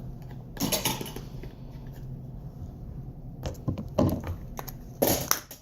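Homemade slime being squished and handled, a few short crackling, squelching bursts, the loudest near the end.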